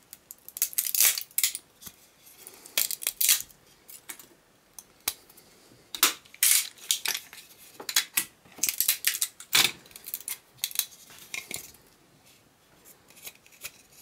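Craft knife scraping and prying 3D-printed support material off a black ABS plastic part: irregular short, sharp scrapes and clicks with brief pauses between them.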